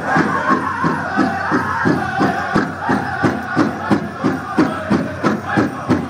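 Powwow drum group: a big drum struck in unison at a fast, even beat of about three and a half beats a second, with singers' voices over it.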